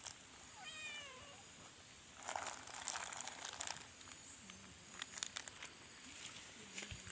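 A cat meows once, a short call falling in pitch about a second in, followed by a few seconds of rustling and scattered clicks.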